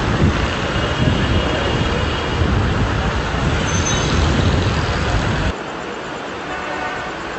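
Loud, uneven low rumbling noise that cuts off suddenly about five and a half seconds in, leaving a quieter hiss.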